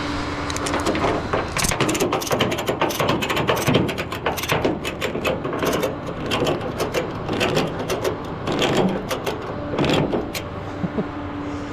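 Ratchet tie-down strap being cranked tight to secure a vehicle on a tow truck: a long, rapid series of ratchet clicks. The clicks start about a second and a half in and stop shortly before the end, with a steady hum under the quieter stretches.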